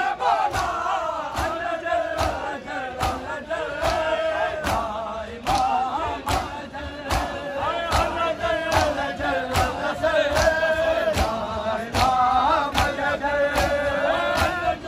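Crowd of men chanting a nauha, a Shia lament, in unison, over a steady beat of matam, open hands striking bare chests about twice a second.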